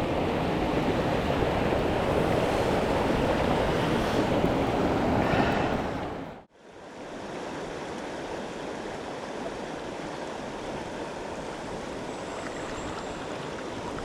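Rushing mountain-stream water, a steady hiss of current. About six and a half seconds in it cuts out suddenly and comes back quieter.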